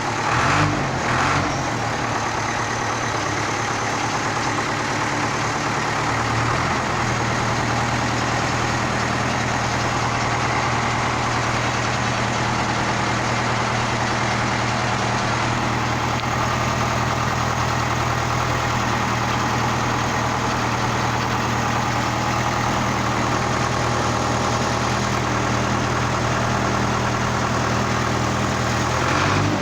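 Ursus 385 tractor's diesel engine running, with a couple of short revs about a second in, then settling into a steady idle from about six seconds on.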